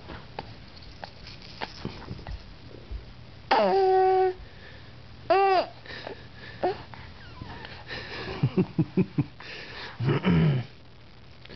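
Three-month-old baby vocalizing: a long, steady squeal about three and a half seconds in, a short squeal that rises and falls about two seconds later, then a string of short grunts and a low falling grunt near the end.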